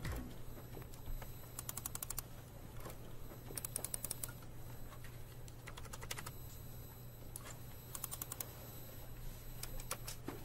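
Typing on a computer keyboard: short runs of quick keystrokes with brief pauses between them, over a faint steady low hum.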